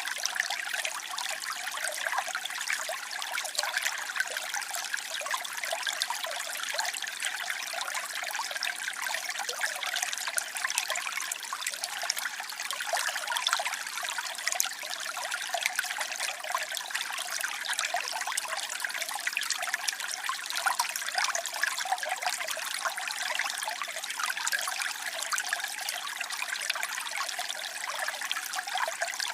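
Waterfall: falling water splashing in a steady, unbroken rush.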